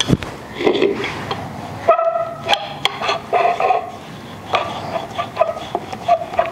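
Wooden rolling pin rolled back and forth over paratha dough on a ceramic rolling board. From about two seconds in, each stroke gives a short, steady tone.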